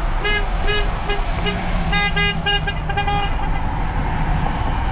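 Vehicle horns tooting in a rapid run of short beeps, about four a second and in two pitches, over a van's steady engine hum; the beeps stop about three seconds in.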